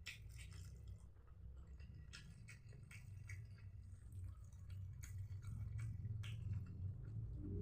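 Close-miked chewing of chicken intestines: wet, squishy mouth sounds with irregular small clicks, over a low steady hum.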